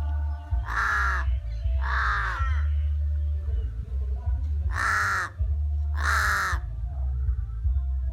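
Crow cawing: four harsh caws in two pairs, one pair about a second apart early on and another near the middle, over a steady low rumble.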